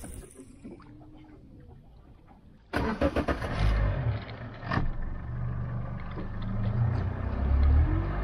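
Outboard motor cranked and starting almost three seconds in, then running, its revs rising near the end as it drives the boat off.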